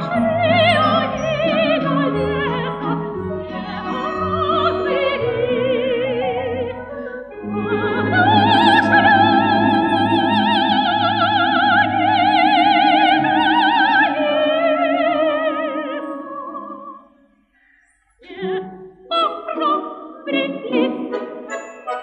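Soprano voice singing a Russian folk song over an orchestra of Russian folk instruments, building to a long, loud held high note with wide vibrato that fades away. After a brief pause, the orchestra plays a run of short, crisp notes.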